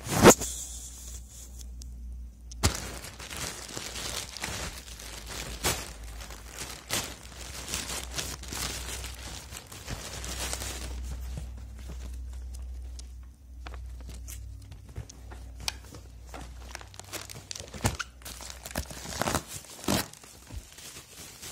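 Plastic postal mailer being torn open and its plastic bag and bubble wrap crinkling and rustling as they are handled, with irregular sharp crackles. A loud thump right at the start.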